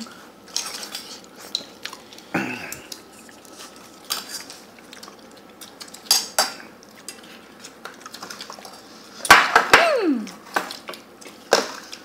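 Metal cutlery clinking and scraping against a stainless steel bowl of rice, in scattered sharp clinks. About nine seconds in comes a louder clatter with a scraping squeal that falls in pitch.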